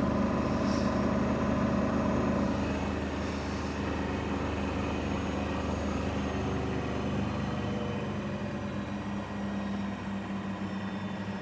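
AEG washing machine on its spin cycle, the drum and motor giving a loud, steady hum; the pitch shifts a little and the level eases slightly about two thirds of the way through.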